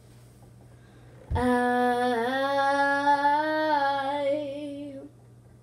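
A girl's voice holding one long sung note for about four seconds, starting about a second in, with a small dip and rise in pitch before it stops.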